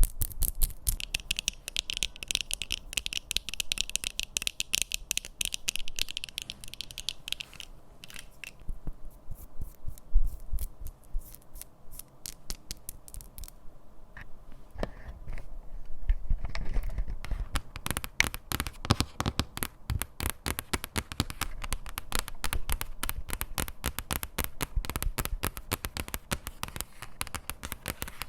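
ASMR tapping and scratching on objects, rapid and close. A scratchy hiss runs with the taps for the first several seconds, the taps thin out and soften for a stretch in the middle, then come dense again.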